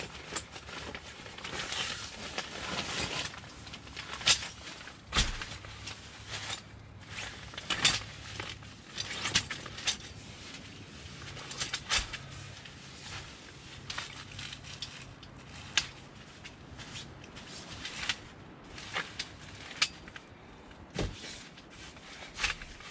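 Folding camp cot being unpacked and set up: rustling fabric, then a series of sharp clicks and knocks from its metal frame and legs as they are fitted.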